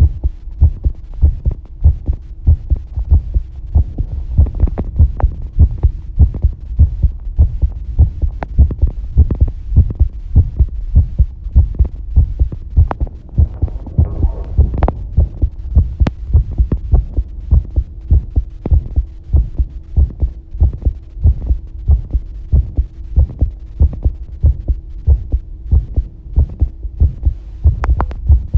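Close-up human heartbeat: a steady, even run of low beats, with a faint steady hum underneath.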